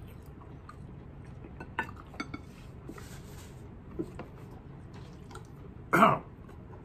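A few faint clinks of plates and wing bones on a table, then one short, loud cough about six seconds in, a reaction to very hot wing sauce burning the throat.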